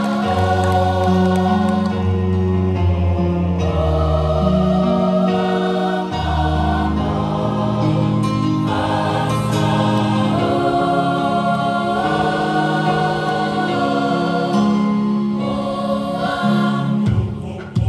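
A choir singing a Christmas carol in held, slowly changing chords over a low bass part. The singing breaks off shortly before the end.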